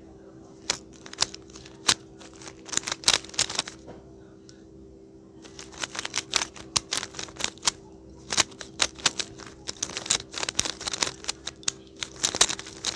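Rubik's cube being turned rapidly, its plastic layers clicking in quick flurries of turns, as in solving by the CFOP method. There is a pause of about a second and a half about four seconds in.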